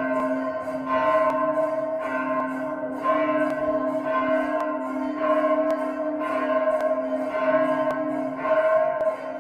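Bells rung repeatedly, a fresh stroke about once a second, each ringing on into the next, with faint quicker high ticks over them.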